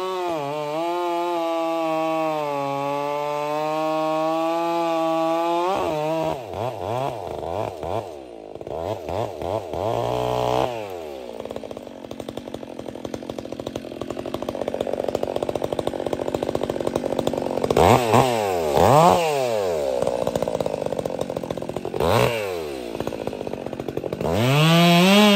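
Stihl 362 C-M two-stroke chainsaw with a Bark Box aftermarket muffler, held at full throttle for about six seconds with its pitch sagging slightly as it loads in the cut. It then drops to idle and is blipped up and down several times, and goes back to full throttle near the end.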